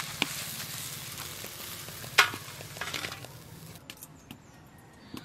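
Fried masala of dried red chillies, tomato and green chilli sizzling in a hot wok as it is scraped out with a metal spatula, with a few sharp clinks of metal on metal, the loudest about two seconds in. The sizzle stops a little before four seconds in, leaving only faint clicks.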